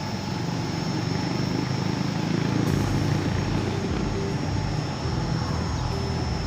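Steady low engine-like drone of city traffic and machinery, with a faint higher steady tone coming in about two-thirds of the way through.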